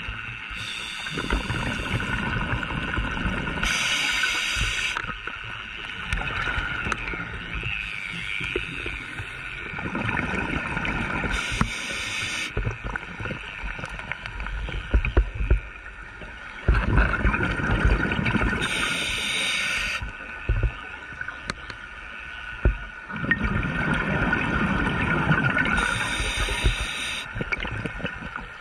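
Scuba diver breathing through a regulator underwater: a short hiss on each inhale and a longer low rumble of exhaled bubbles, a breath roughly every seven seconds.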